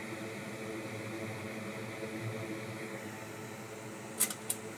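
Steady electrical hum and fan-like whirr, with two sharp clicks about a third of a second apart near the end.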